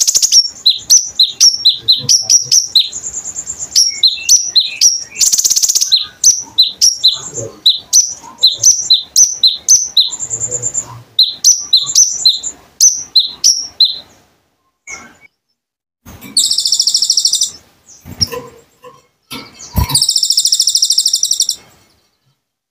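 Kolibri ninja (konin) sunbird singing: a fast run of high, sharp chirps for about fourteen seconds. After a short break come two buzzing trills a few seconds apart.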